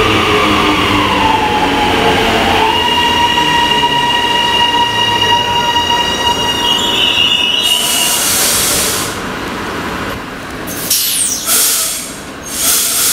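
High Capacity Metro Train braking to a stop at a platform: a high whine falls in pitch, then holds as a steady high squeal for about five seconds. After it, several short bursts of hissing follow as the train stands.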